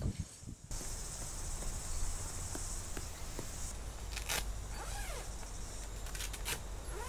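Outdoor summer ambience: a steady high insect drone that stops a few seconds in, over a low rumble, with a few short rustles of tent fabric being handled and a faint bird call gliding downward near the end.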